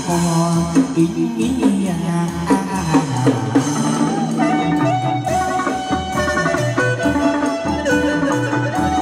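Chầu văn ritual music for a hầu đồng spirit-medium ceremony: a melody over a steady drum beat.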